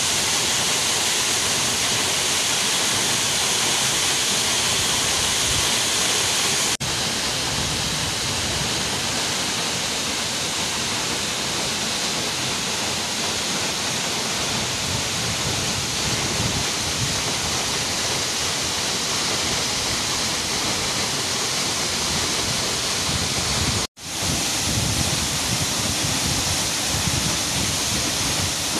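Steady rushing of a tall waterfall plunging into a rock pool. The sound is even throughout, with a brief dip about seven seconds in and a momentary silence about twenty-four seconds in.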